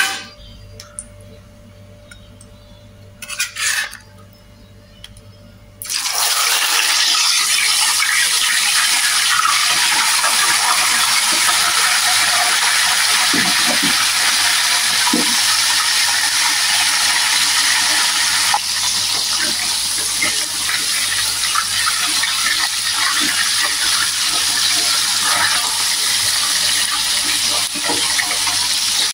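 Hot cooking oil sizzling faintly, then about six seconds in whole mujair fish (Mozambique tilapia) go into the oil and it breaks into a loud, steady frying sizzle.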